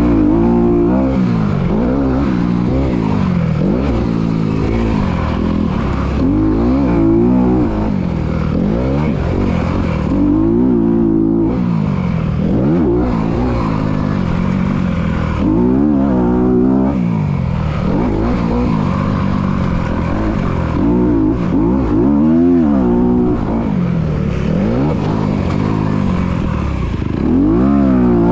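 Motocross dirt bike engine revving hard and falling off over and over, its pitch climbing and dropping every couple of seconds as the rider accelerates, shifts and backs off between corners and jumps.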